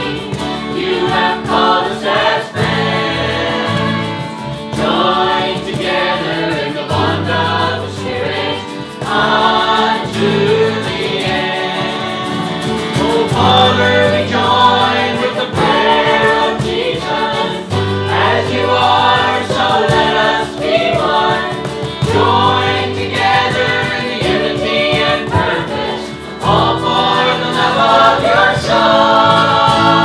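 Christian worship song sung by a group of mostly female voices, backed by a small live band of acoustic guitar, electric bass, cajon and violin. Held bass notes change every couple of seconds under the singing, and the music grows louder near the end.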